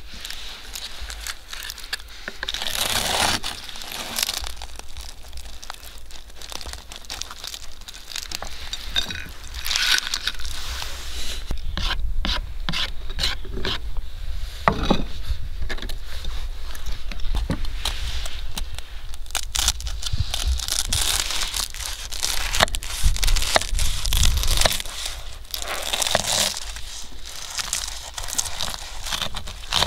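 Knife crunching and cracking through the crisp baked crust of an oven-baked pilaf, with irregular crackles and scrapes of the blade and spatula against the crust and the wooden board.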